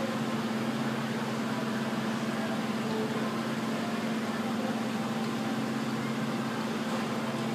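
A steady mechanical hum with a low drone and an even hiss, from a fan or ventilation unit, while coolant is poured from a jug through a funnel into the reservoir.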